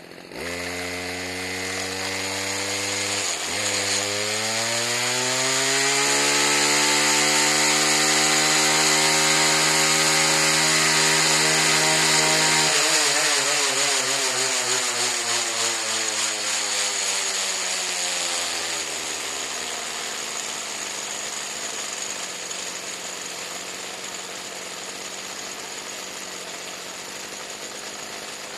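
Low-compression weed eater engine turning a heavy ATV flywheel: the engine starts and its speed climbs steadily, holds high, then drops away about halfway through, leaving a rough rattling run.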